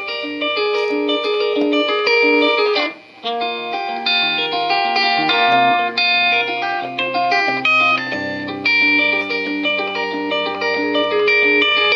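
Solo electric guitar playing a busy run of quickly picked notes, with a short break about three seconds in, then a low note held under the picking from about eight seconds in.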